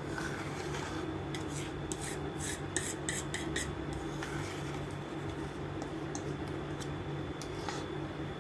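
Microwave oven running with a steady low hum and a faint high whine. A quick series of scraping, rubbing clicks sounds about one to four seconds in.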